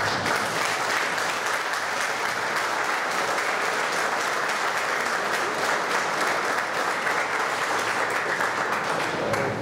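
Audience applauding: a steady, dense clapping of many hands that thins out near the end.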